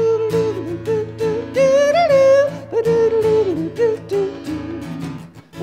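Strummed acoustic guitar with a man's wordless singing over it, the voice sliding between held notes. Near the end both drop out briefly.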